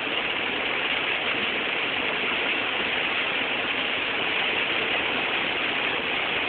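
Steady road and engine noise heard inside a car's cabin while driving.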